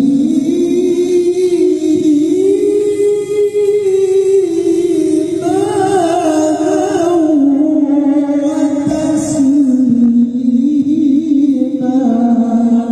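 A male Quran reciter's voice holding one long, ornamented melodic line in the mujawwad style. The pitch steps upward over the first few seconds and settles lower in the second half.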